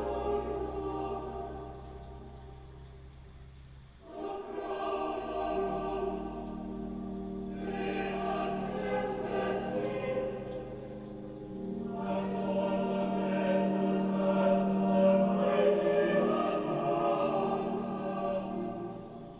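A choir singing in long, held phrases, with a low steady tone sounding beneath the first phrase. That phrase fades out about four seconds in, and new phrases begin about four and twelve seconds in.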